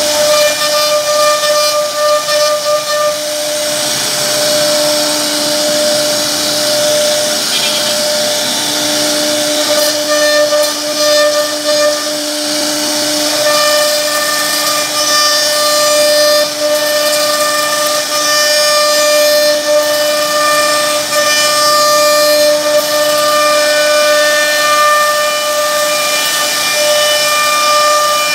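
CNC router spindle with a carving bit cutting a relief pattern into a wooden board: a steady high-pitched whine over the hiss of the cut, with a lower hum that comes and goes as the bit works.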